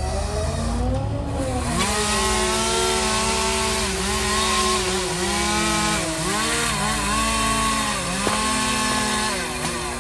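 Chainsaw running at high revs and cutting wood, its engine pitch dipping and recovering about once a second as the chain bites under load.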